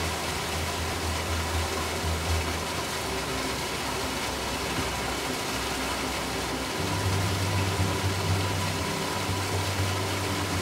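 Slow ambient music of sustained low drone notes over a steady hiss of falling water. The low notes shift and swell about seven seconds in.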